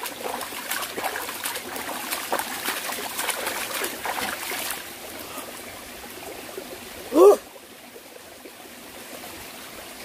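Hands scooping and splashing mountain stream water onto a face for about five seconds, over the steady trickle of the stream. A short voice exclamation about seven seconds in.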